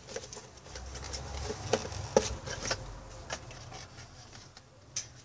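Cardboard packaging being handled: the white cardboard insert of a tablet box is slid and lifted out, with scraping and rustling and a few sharp taps of cardboard.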